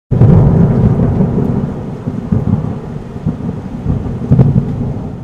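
Thunderstorm sound effect: a loud rumble of thunder over rain that starts suddenly, has sharper cracks about two and four seconds in, and slowly fades.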